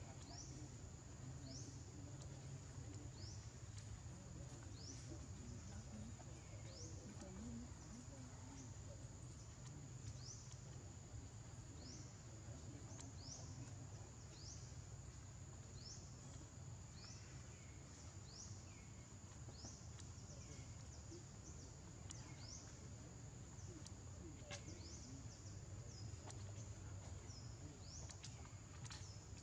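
Faint forest ambience: a steady high-pitched insect drone, with a short rising chirp repeated about once a second and a low rumble underneath.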